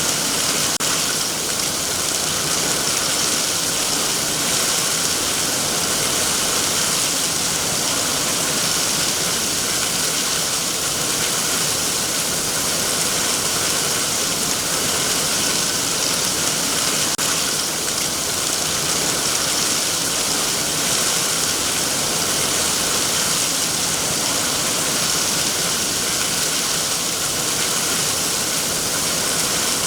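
Heavy rain falling steadily on trees, a dense even hiss of drops on leaves.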